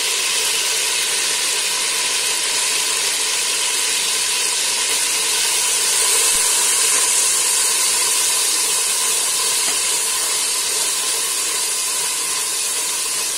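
Hot oil sizzling steadily in a steel pot as fresh coriander and mint leaves fry in it with onions and ginger-garlic paste. The sizzle is a little louder about halfway through.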